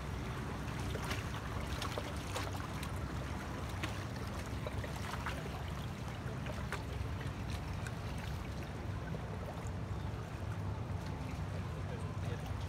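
Lake water sloshing and dripping around a person wading and hauling in a wet magnet-fishing rope. Small splashes and drips are scattered over a steady low rumble.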